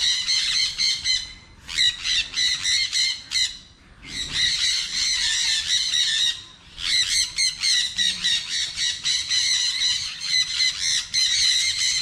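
A large flock of sun conures screeching, many shrill calls overlapping, with a few brief lulls.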